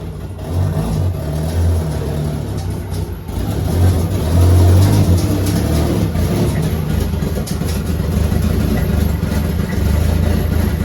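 Mitsubishi Lancer Evolution X's turbocharged four-cylinder engine running, a little louder about four seconds in, with a failed big aftermarket turbo whose compressor blades are broken and smacking against the compressor housing.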